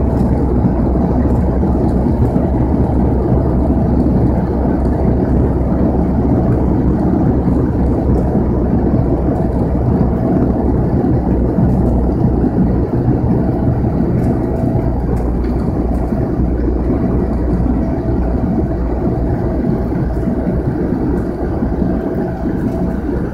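Cabin noise of a Bombardier Dash 8-100 twin turboprop in flight: the engines and propellers make a steady, loud low drone with a steady hum tone running through it.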